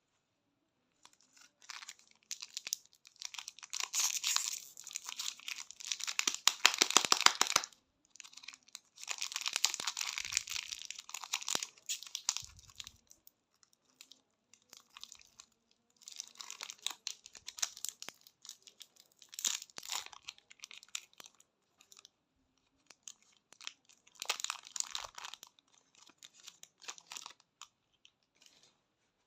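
Candy wrappers being torn open and crinkled by hand, in four crackling spells separated by short pauses.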